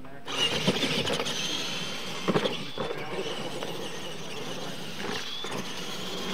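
Radio-controlled monster trucks racing on dirt: a high whine from their drivetrains wavers up and down over the scrape of tyres, with a few thumps, the loudest about two seconds in.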